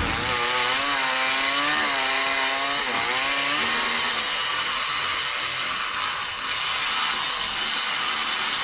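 A small high-revving engine running, its note wavering up and down for about three and a half seconds, then giving way to a steady hissing noise.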